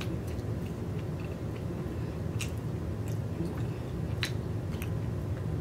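Close-up eating sounds: chewing while a plastic fork works oysters out of their shells, with a few sharp clicks scattered through, over a steady low hum.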